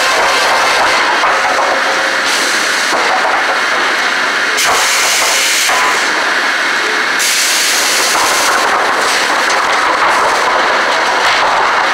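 Loud, steady din of sawmill machinery: the chain conveyors of a lumber sorting deck running and clattering, with fresh-sawn boards sliding along the chains.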